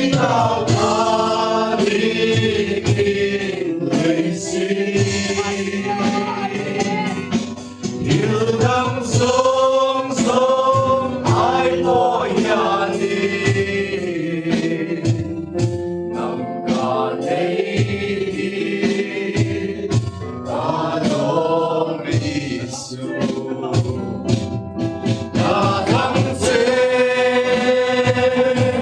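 Gospel music with choir singing, several voices holding and gliding between sung notes.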